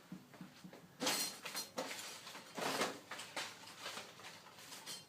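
Rummaging through items by hand: irregular rustling and light handling noises in several short bursts.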